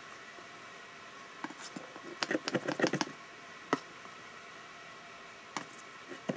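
Light clicks and taps of a metal spoon against a plastic cornstarch tub and a plastic funnel as cornstarch is spooned into a bottle. There is a quick run of clicks about two seconds in, then a few single taps.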